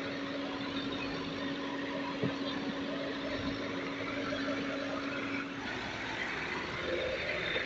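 Case backhoe loader's diesel engine running steadily under load while the backhoe digs rock and mud. There is a single knock about two seconds in, and the engine note shifts about five and a half seconds in.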